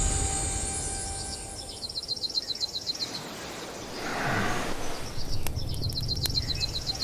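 Birdsong over a low outdoor ambience: a small bird's rapid trill of repeated high chirps, heard twice, with a brief swell of noise about four seconds in, as a held musical note fades away at the start.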